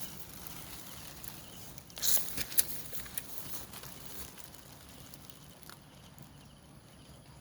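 Light rain pattering outdoors, with a short louder noisy burst and a few sharp clicks about two seconds in.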